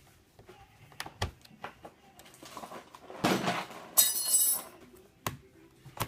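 Small screwdriver working the keyboard screws back into a Dell Precision M6300 laptop: scattered light clicks and taps of metal on the laptop's frame, a brief rustle of handling about three seconds in, and a short metallic clink with a ring about four seconds in.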